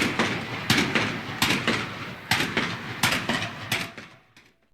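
Musket and rifle shots crack at irregular intervals over a constant battlefield din, about ten in a few seconds, and the whole thing fades out to silence near the end.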